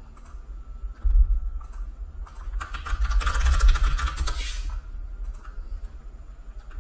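Computer keyboard typing and scattered clicks, with a low thump about a second in and a rushing noise lasting about two seconds midway.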